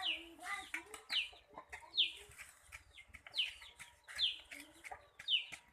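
Chicks peeping over and over: high calls that fall in pitch, about one a second, with a few short clicks in between.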